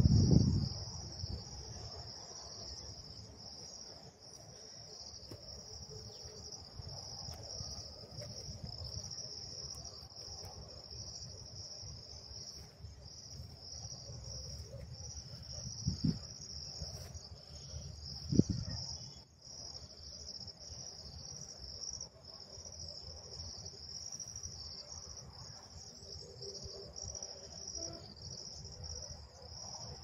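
Insects chirring steadily in a high, unbroken drone, over low rumbling noise with two short thumps about two-thirds of the way through.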